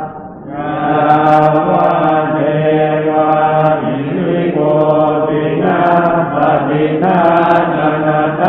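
Chanting in Pali on a near-monotone, as in Thai Buddhist evening chanting. It breaks off for a short breath at the start, then runs on steadily through the verse.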